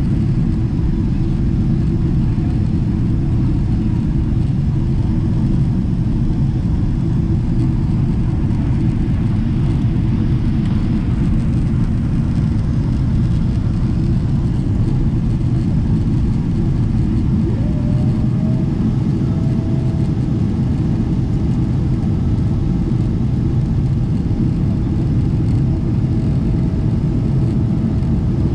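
Boeing 777-300ER cabin noise at a window seat: a steady low rumble of its GE90 engines and the airflow over the fuselage. A faint higher whine slides up and comes in about two-thirds of the way through, holding on and off to the end.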